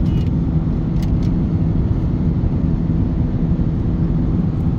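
Steady road and engine noise inside a car cruising at highway speed, about 100 km/h: a constant low rumble with a steady hum. A couple of faint clicks about a second in.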